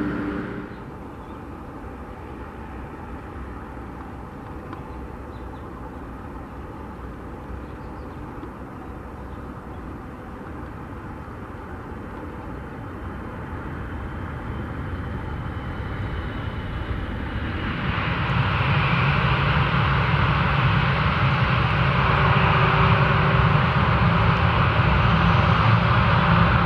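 Airbus A321-211's CFM56 jet engines at taxi power: a steady jet rumble and hiss that grows louder as the aircraft comes nearer, jumping up sharply about two-thirds of the way through.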